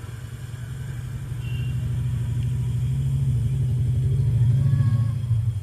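Hot-air rework gun blowing on a phone board as it melts solder paste to seat a charging jack: a steady low hum that grows louder, then drops off just before the end.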